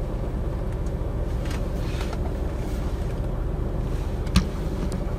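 Steady low rumble of an idling vehicle engine, with a little wind on the microphone; a single sharp click about four seconds in.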